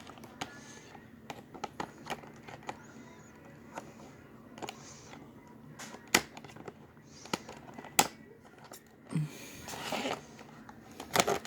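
Scattered clicks and taps with short bursts of rustling as a boxed action figure's cardboard and plastic packaging is handled and worked open, with a few louder, sharp clicks standing out.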